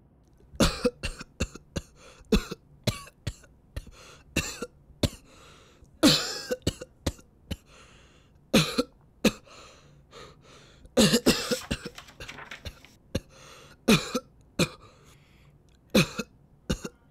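A man coughing hard and repeatedly in a long fit, starting about half a second in: short, harsh coughs coming in quick runs with brief gaps between them.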